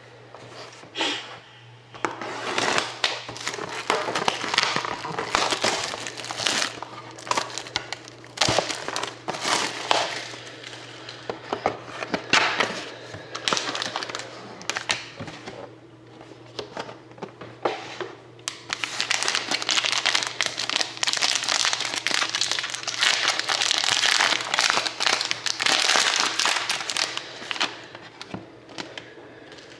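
Plastic wrapping crinkling and tearing as a sealed box of trading cards and its pack are unwrapped and opened by hand, in bursts with a long stretch of steady crinkling in the second half.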